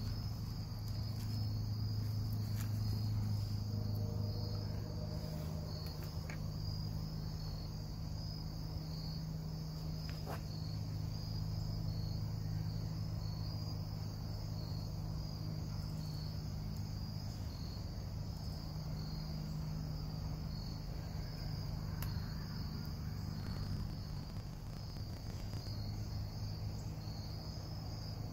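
Insects chirping in a steady, pulsing chorus, over a steady low hum, with a few faint clicks from handling.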